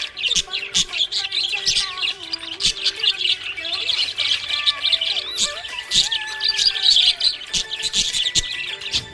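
Several small pet parrots chirping and twittering without pause, many quick high calls overlapping one another.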